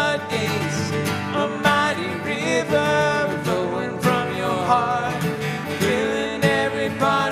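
Live church praise band playing a contemporary worship song: sustained chords with melodic lines moving over them and a few sharp hits.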